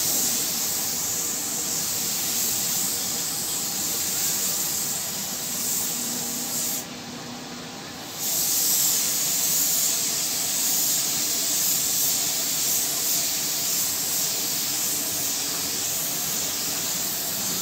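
Compressed-air gravity-feed spray gun hissing steadily as paint is sprayed. About seven seconds in the trigger is let go and the hiss stops for about a second, then spraying resumes.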